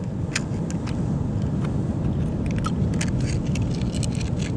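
Steady low rumble of surf and wash on a rocky shoreline, with scattered sharp clicks and ticks.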